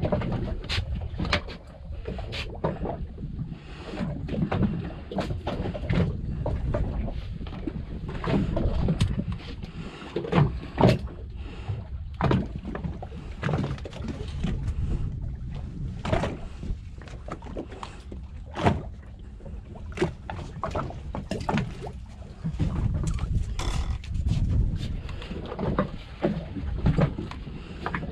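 Small open boat on the water, with a steady low rumble of water and wind and frequent short knocks and clicks as a hook and line are handled.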